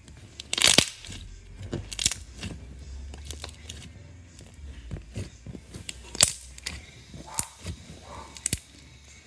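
Green slime being squeezed, stretched and kneaded by hand, giving an irregular run of sharp pops and crackles, the loudest about a second in.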